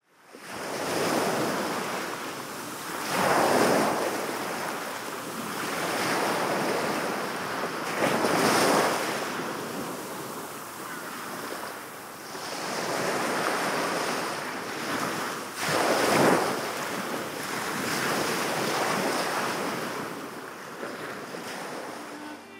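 Sea waves breaking on a shore, the surf swelling and falling back in slow surges every few seconds.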